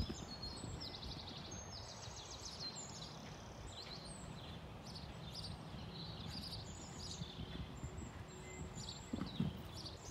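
Outdoor ambience: a steady low background noise with small birds chirping. A horse's hoofbeats on arena sand come in about nine seconds in, loudening as it canters up to a jump.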